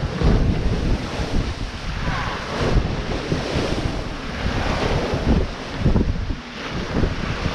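Wind buffeting the microphone in irregular gusts over the steady rush of sea waves, aboard a sailing yacht under way.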